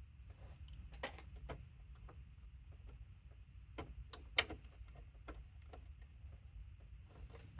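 Scattered small clicks and taps of tools and small hardware being handled as a DJ mixer is taken apart, with one sharper click about four and a half seconds in, over a low steady hum.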